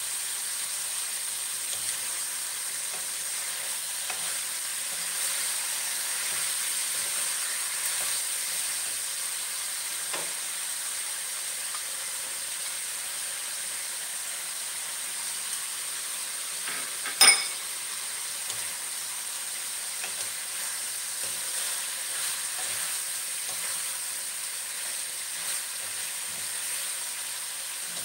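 Pork cubes sizzling steadily in hot oil in a wok, turned now and then with a wooden spatula. A single sharp knock stands out about two-thirds of the way through.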